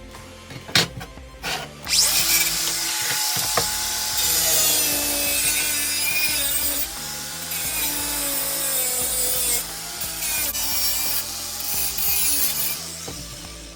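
Power tool cutting sheet metal, running continuously for about eleven seconds with its pitch wandering up and down as it bites, after a few sharp clicks at the start.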